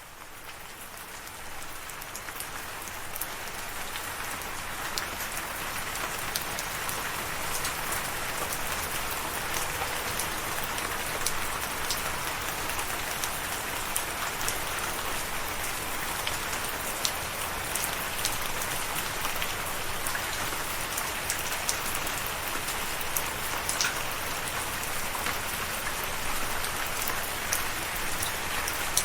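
Steady rain falling, with individual drops ticking sharply over the dense hiss. It swells up from a fade-in over the first few seconds, then holds even.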